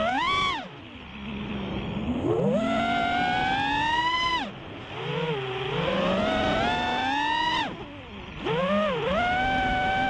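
Brushless motors and 5-inch propellers of an FPV freestyle quadcopter on 6S (Emax Eco 2207 1700kv motors, Gemfan Hurricane 5146 props), whining in pitch that rises and falls with the throttle. There is a long climbing whine from about two to four seconds in, and the sound drops away sharply three times as the throttle is cut.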